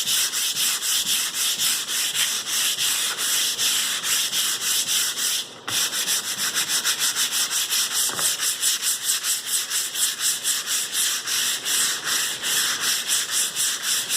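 Sandpaper being rubbed by hand back and forth over a filled chip repair in an oak floor, in quick rhythmic strokes of about four a second, to flatten the filler. It pauses briefly about five and a half seconds in.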